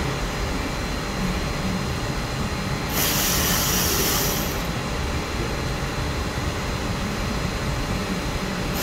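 Steady mechanical background noise with a low rumble, joined about three seconds in by a hiss that lasts about a second and a half.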